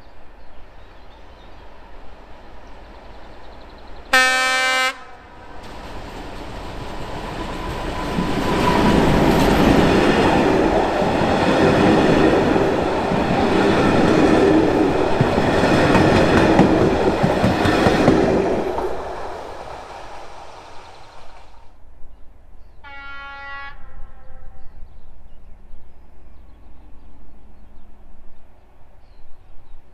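Czech diesel locomotive giving a short horn blast, then passing loudly with engine and wheel noise that builds, holds and fades away. A second, shorter horn call comes about 23 seconds in.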